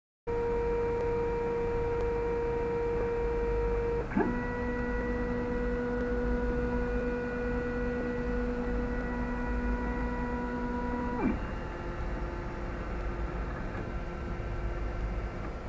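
3D printer running a print, its stepper motors whining in steady tones that jump to a new pitch twice, about four seconds in and again about eleven seconds in, over a low hum.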